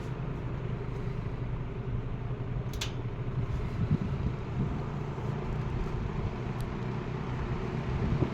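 1950s Kenmore automatic box fan with its GE motor running: a steady, low-pitched rush of air and motor hum, with a brief tick about three seconds in.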